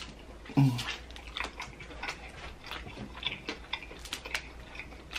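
Chewing and lip-smacking of crab meat, with small clicks and crackles as a crab leg's shell is pulled apart by hand. About half a second in there is a short, low hum from the eater.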